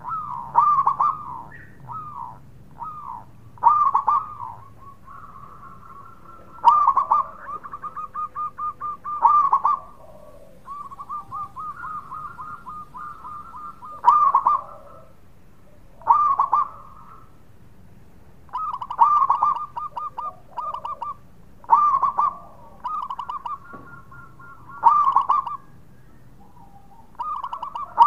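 Zebra dove (perkutut) cooing: phrase after phrase of quick, rolling runs of short coo notes at one pitch, each with a few louder accented notes, separated by short pauses.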